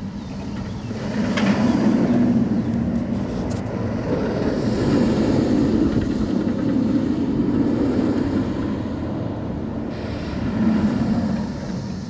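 Bolliger & Mabillard hyper coaster train running over its steel track, a low rumble that builds about a second in, holds, and swells again near the end as the train passes through the hills.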